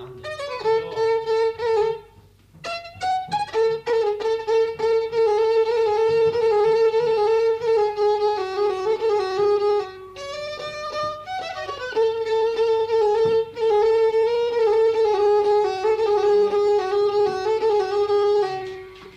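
Instrumental break in an Arabic song: a violin plays a quick, ornamented melody, dropping out briefly about two seconds in and again near the middle.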